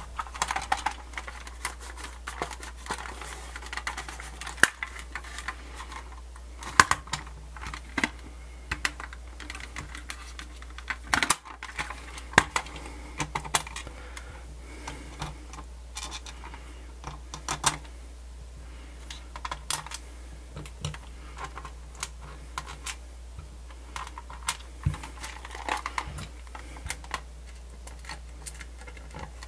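Irregular clicks and taps of hands handling the hard plastic case of a Sony Discman portable CD player during reassembly. Small screws are picked up, and near the end a screwdriver drives a screw into the case bottom.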